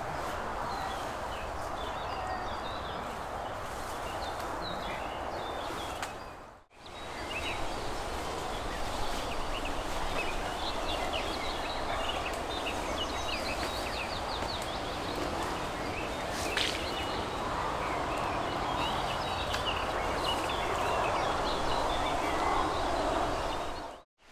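Steady outdoor background hiss with scattered small birds chirping and singing throughout; the sound drops out for a moment about seven seconds in.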